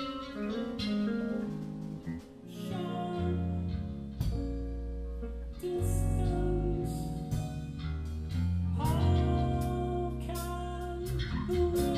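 Rock band playing live in rehearsal: sustained keyboard and guitar chords with a singer's voice, a low bass line coming in about three seconds in, and drum and cymbal hits growing busier in the second half.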